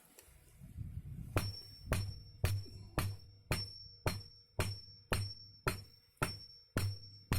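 Hammer blows on a heated steel bolt resting on another hammer used as an anvil, flattening the tip into a knife blade: about two strikes a second starting a second and a half in, each with a short high metallic ring.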